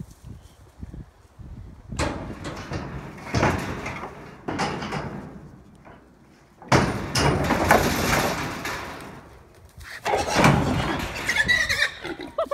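Feral hogs scrambling and banging about in a metal livestock trailer, hooves clattering on the floor and the gate panels rattling, in several loud spells, with hog squeals near the end.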